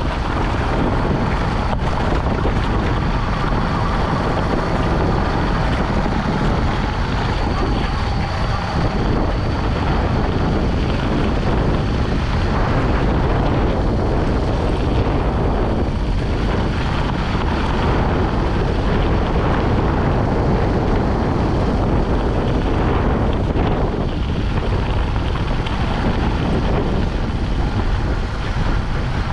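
Motorcycle riding steadily along a dirt and gravel track: the engine runs at an even pace under a constant rush of wind on the microphone.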